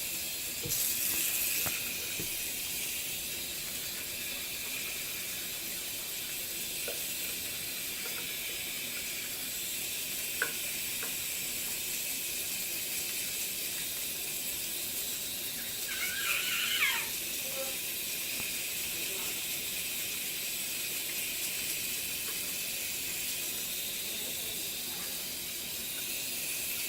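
One short, high, wavering squeak that falls in pitch, about sixteen seconds in, over a steady hiss. It is the weird squeaky noise that turns up now and then while a slider turtle is being cleaned, and the owner is unsure whether this red-eared slider or a yellow-bellied slider nearby makes it. A brief rush of noise near the start and a single click about ten seconds in.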